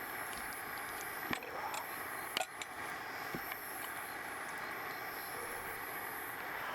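Outdoor campsite ambience: a steady hiss with a high chirp repeating about once a second. Three sharp clicks come about a second apart, the middle one the loudest.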